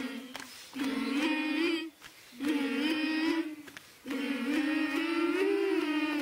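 A group of children humming together in unison: long held notes in several phrases broken by short pauses, the pitch wavering gently within each phrase.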